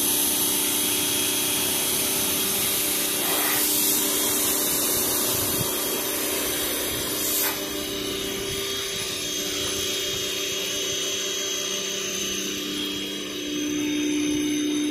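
Pressure washer running, its motor and pump humming steadily under the hiss of the water jet. The sound drops a little about halfway through, and the hum grows louder near the end.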